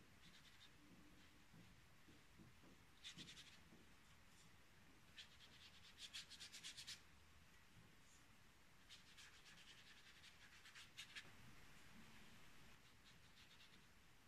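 Faint, scratchy strokes of a watercolour brush across paper as the sheet is wet for the background. They come in a few short runs of quick strokes.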